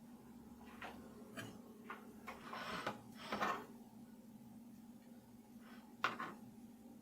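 Scattered light clicks, knocks and brief rustles of objects being handled, over a steady low hum.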